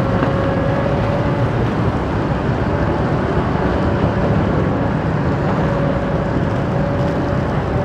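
Excavator diesel engine running steadily, with a faint intermittent whine.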